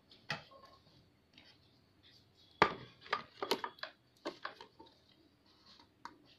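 Sharp clicks and knocks of a bench grinder's metal base plate being handled and turned over on a worktable. The loudest knock comes about two and a half seconds in, followed by a quick run of smaller knocks.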